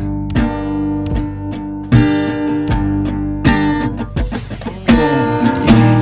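Music without singing: an acoustic guitar strumming chords, with a fresh chord struck every second or so.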